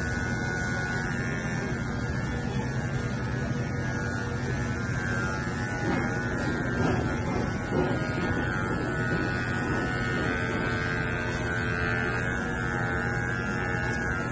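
Corded electric pet hair clippers buzzing steadily as they cut through a dog's long white fur.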